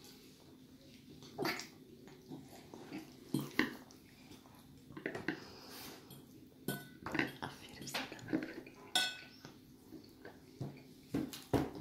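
A metal fork tapping and scraping irregularly against a plastic plate as a small child eats pasta, about ten short clicks and scrapes.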